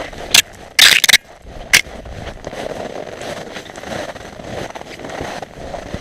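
Footsteps crunching through snow at a steady walking pace. About half a second to two seconds in come a few very loud, sharp scraping crackles, the loudest sounds here.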